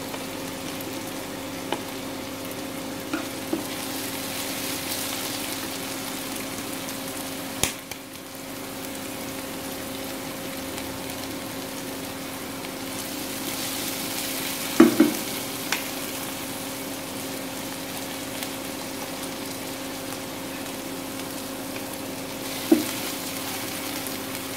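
Chopped onions and green chilli paste sizzling in hot oil in a non-stick kadhai, stirred with a slotted spatula, which knocks sharply against the pan three times. A steady low hum runs underneath.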